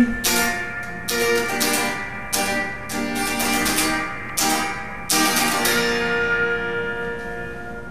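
Electric guitar strummed in a chord rhythm; about five seconds in, one chord is left to ring out and slowly fade.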